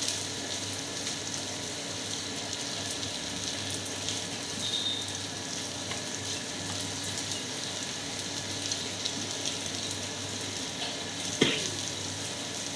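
Spice- and egg-coated soybean chunks frying in hot oil in a pan, a steady sizzle. A single sharp knock near the end.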